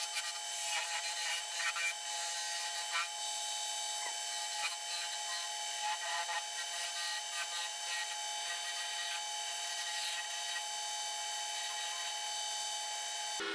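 Wood lathe motor running with a steady whine while a hand-held turning chisel scrapes and cuts the spinning wooden spindle in short, uneven strokes.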